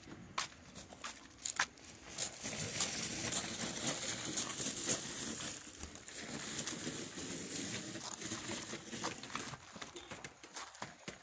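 Small wheels of a folding two-wheeled hand cart rolling and dragging over loose gravel: a continuous crunching rattle full of small clicks, building up about two seconds in and easing off near the end.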